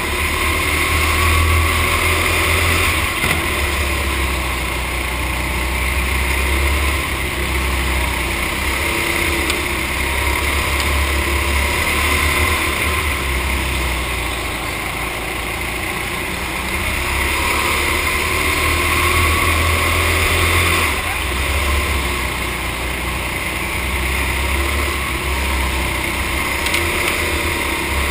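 Racing go-kart engine running at speed through a lap, heard close-up from a camera on the kart. Its note rises and falls in pitch and level as the kart slows for corners and accelerates out.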